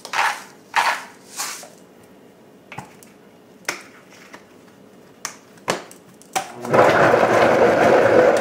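Salt grinder grinding in three short twists, then a few light clicks and knocks. About six and a half seconds in, a Vitamix blender full of soup ingredients starts with a loud whirr, switched on by mistake, and stops after about two seconds.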